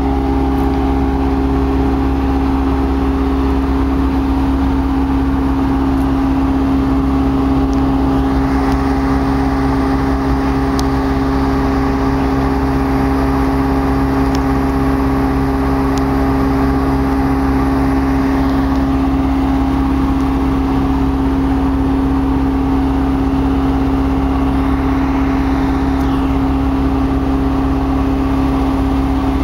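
Diesel switcher locomotive's engine running steadily: a loud, even drone with a low rumble and a constant hum that holds its pitch throughout.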